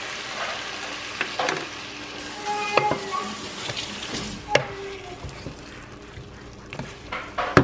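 Water poured into a hot pot of frying carrots and onion sizzles, then a wooden spoon stirs and scrapes the vegetables around the pot. The hiss is loudest for the first couple of seconds, and a few sharp knocks come near the end.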